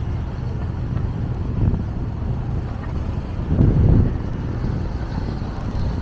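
Low, steady rumble of wind buffeting the microphone, with a stronger gust a little past halfway.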